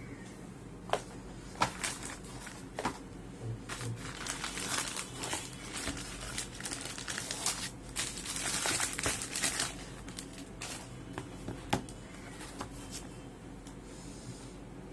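Clear plastic packaging crinkling and crackling as it is handled, densest in the middle, with a few sharp clicks near the start and one near the end.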